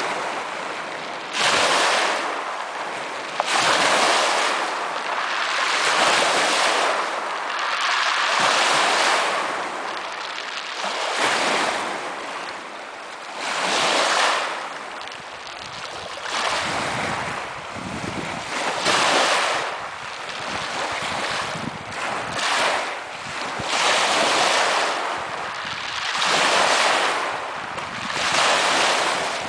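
Small lake waves washing up onto a pebble beach, the rush swelling and easing about every two seconds as each wave comes in.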